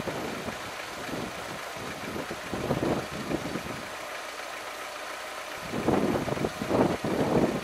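A car engine running as the car drives on, with uneven, bumpy noise; the low rumble drops away for a moment midway.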